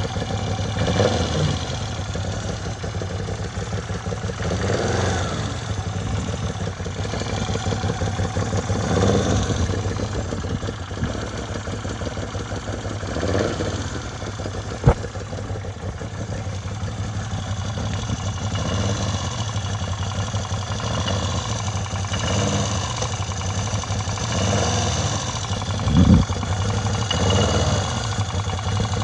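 Moto Guzzi V7 II's air-cooled V-twin idling, the throttle blipped every few seconds so the revs swell and fall back, with a little tinny metallic knocking from the left cylinder. The owner suspects a lean mixture from a K&N filter with a custom map. A sharp click about halfway through and a thump near the end.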